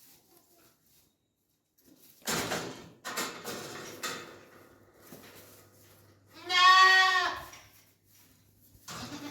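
Goat bleating: one long, loud, wavering call a little over six seconds in, after several shorter, rougher sounds about two to four seconds in.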